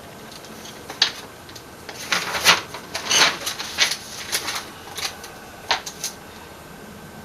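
Irregular sharp clicks and taps, about a dozen of them, clustered between about one and six seconds in.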